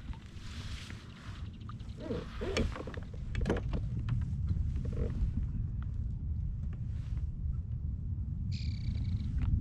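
Wind rumbling on the microphone from a kayak on the water, with scattered knocks and clicks in the middle and a brief high tone near the end.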